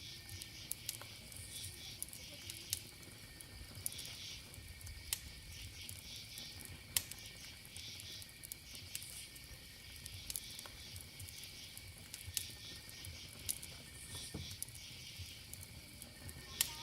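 Campfire crackling with irregular sharp pops, over a steady high-pitched drone of insects.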